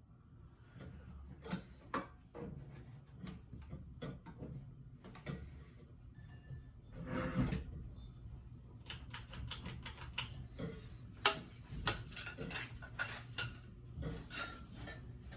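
Metal parts of a ceiling fan being handled and broken apart: irregular clinks, clicks and knocks, coming thicker in the second half, with a short clatter about seven seconds in.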